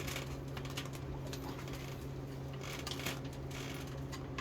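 Faint clicks and scrapes of a screwdriver prying at a part on an automatic transmission's valve body, over a steady low hum.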